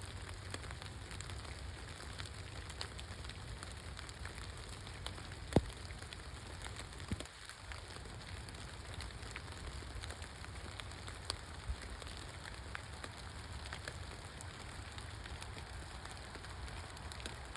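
Steady rain falling, with many small drop hits scattered through it and one sharp, louder tap about five and a half seconds in.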